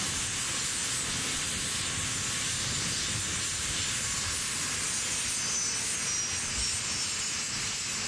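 Alpha Jet jet engines running with a steady hiss; in the second half a high whine slowly falls in pitch.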